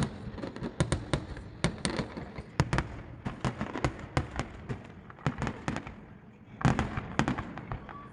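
Fireworks going off in quick, irregular bangs and cracks, several a second, with a brief lull followed by a dense cluster of bangs about two-thirds of the way through.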